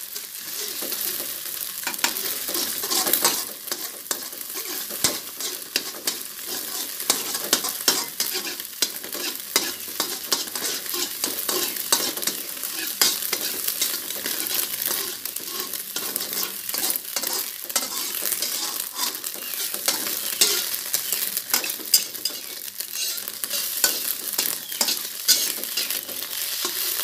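Beaten eggs sizzling in oil in a wok as they are scrambled, with a metal utensil repeatedly scraping and clicking against the pan.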